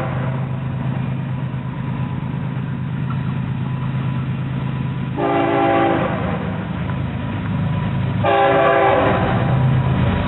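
Florida East Coast freight train led by two GE Evolution-series diesel locomotives approaching with a steady engine rumble. Its multi-note air horn sounds twice, briefly about five seconds in and then for about a second near the end, as the rumble grows louder.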